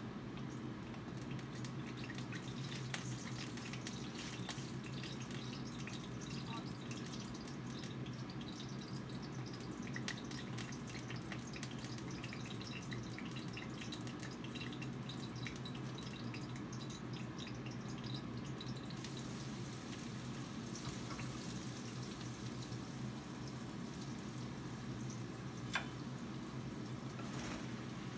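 Kitchen cooking sounds: a steady low hum with many light, scattered ticks and drips, thickest through the first two-thirds.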